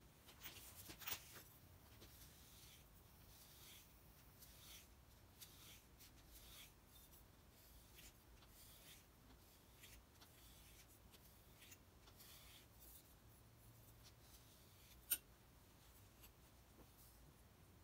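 Faint, irregular rubbing strokes as a block of stropping compound is worked along a leather strop on a granite slab. There is a single sharp click near the end.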